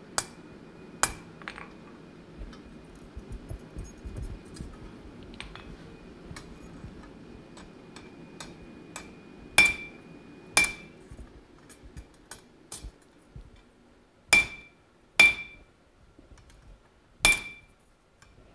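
Hand hammer striking cold steel box-jaw tongs laid on an anvil, truing the tongs. Light taps come first, then five sharp blows about a second apart, each with a short high ring from the anvil.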